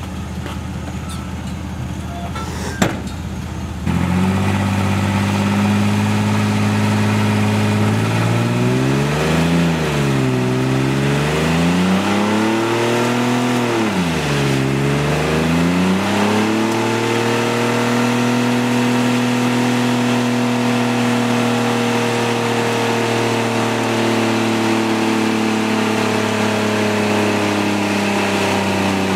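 Pickup truck's 4.3-liter V6 running at a steady low speed, then revved hard about four seconds in for a burnout, the rear tires spinning on greased steel plates. Engine speed sags twice, then climbs and holds high and steady at full throttle.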